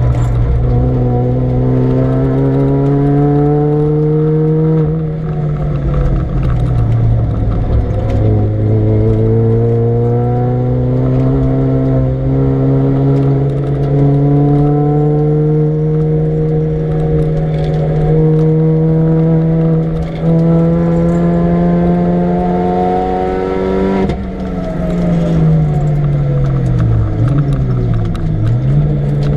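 Supercharged Mini Cooper R53's four-cylinder engine at full throttle on track, rising in pitch through the gears with quick upshifts. Near the end it falls in pitch under braking, with two short throttle blips on the downshifts, then pulls up again.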